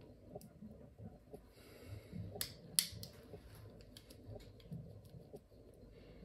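Small plastic clicks and a brief scrape as the red end cap is worked off a bike light's battery circuit board by hand, with two sharper clicks about half a second apart near the middle.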